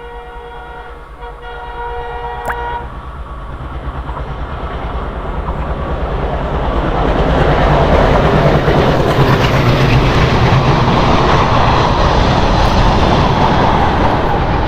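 Freight train horn sounding a steady chord that cuts off about three seconds in, then the rumble and clatter of the goods train growing louder as it passes through the station without stopping, loud from about halfway on.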